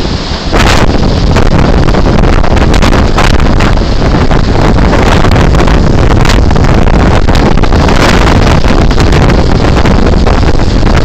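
Strong storm wind blowing across a phone's microphone: a loud, continuous rush broken by frequent sharper gusts.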